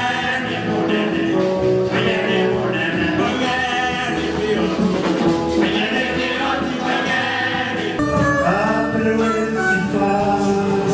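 Men's choir singing a gospel song with instrumental backing.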